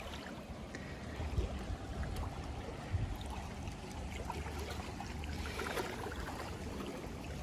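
Sea water sloshing and trickling around a swimmer: a steady rushing noise with many small scattered splashes.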